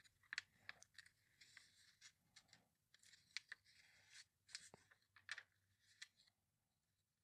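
Faint rustling and crackling of glossy catalog paper as a hand slides over the pages and turns one, a scattering of soft short crackles, busiest midway through.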